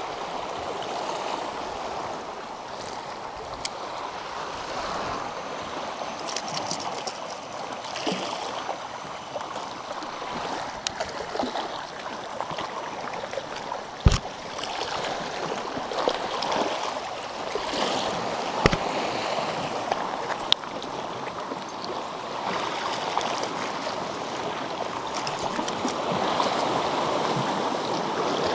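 Sea waves washing and swirling against shore rocks, a steady rushing wash that rises a little near the end, with a few sharp knocks, the loudest about halfway through.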